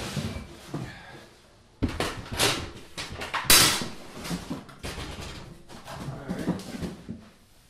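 Unboxing handling: cardboard box and packing material rustling and scraping while the metal parts of a Winnerwell camp stove are lifted out and set against the stove body, with irregular sharp knocks, the loudest about three and a half seconds in.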